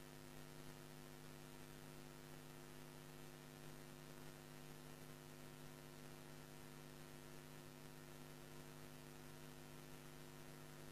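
Near silence: a steady electrical hum with faint hiss from the studio sound system.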